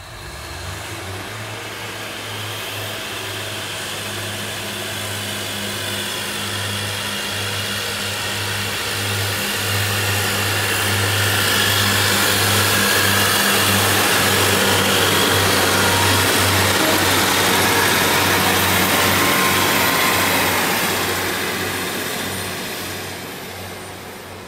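Diesel multiple unit passing close on the near track, its underfloor diesel engines running with a steady low hum. It grows louder to a peak about halfway through, then fades as the train draws away near the end.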